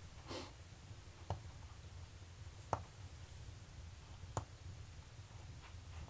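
Wood fire burning in a cast-iron wood stove: four sharp crackles and pops spaced a second or more apart, over a low steady rumble, with a brief hiss near the start.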